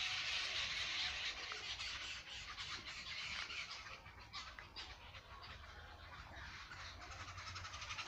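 Dense chorus of many birds chirping and calling in the trees, a steady mass of overlapping short calls; it grows fainter in the middle and swells again near the end.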